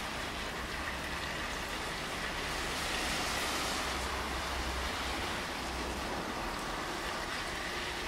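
Steady rainfall, an even hiss with no let-up, over a low rumble that swells for a moment about four seconds in.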